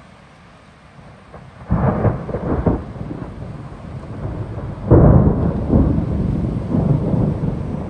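Thunder: a sudden crackling burst about two seconds in, easing off, then a louder clap about five seconds in followed by a long rumble.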